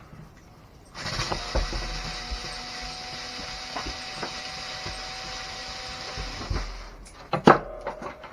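Small electric drill-driver motor running steadily for about six seconds, backing out a screw, then stopping; a few clicks and a sharp knock follow near the end.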